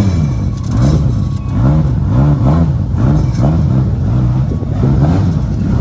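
Car engine being revved in quick repeated blips, its pitch rising and falling about twice a second, shortly after being started.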